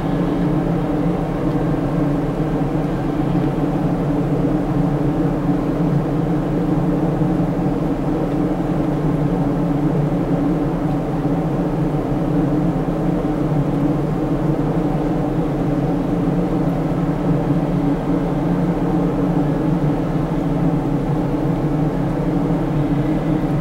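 Steady low drone of a large ship's engines and machinery, heard from on board.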